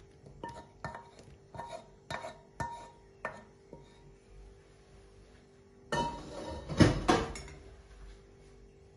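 A wooden spoon knocking and scraping against a coated cooking pot while boiled potato slices in milk are tipped out into a glass baking dish: a run of short knocks, about two a second, each with a brief ring. Well after them comes a louder, denser clatter of the pot and dish being handled.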